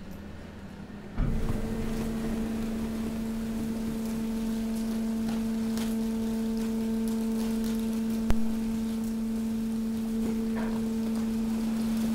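Hydraulic waste compactor's pump motor switching on about a second in and running with a steady hum. A single sharp click about eight seconds in.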